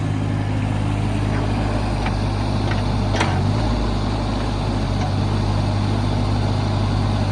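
The John Deere 17D mini excavator's Yanmar three-cylinder diesel running steadily and sounding good, with a few faint clicks and one sharper click about three seconds in.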